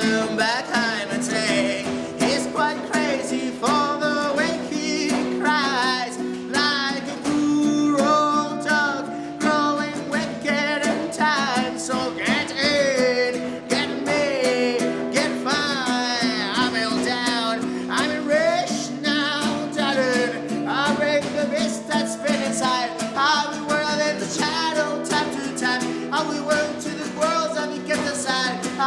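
Band music with guitar and wavering sung vocal lines over held low notes.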